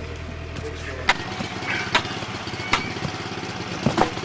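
Sledgehammer blows ramming earth into a used car tyre: about four sharp thuds, each under a second apart, beginning about a second in. A low engine hum from machinery runs underneath at first and stops where the blows begin.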